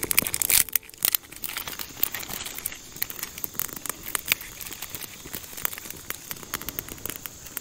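Small fire of dry twigs crackling, with a dense run of sharp snaps and pops in the first second, then scattered pops.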